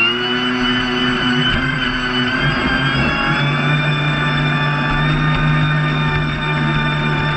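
Brushless electric motor of an RC speedboat running on 3S Li-Po, a steady high whine that climbs slowly in pitch over the first few seconds as the boat gathers speed, over the hiss of water along the hull.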